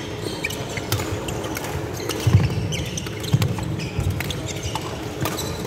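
Badminton rally: sharp cracks of rackets hitting the shuttlecock, several of them, mixed with players' footsteps thudding on the wooden court floor. The loudest thuds come about two and a third and three and a third seconds in.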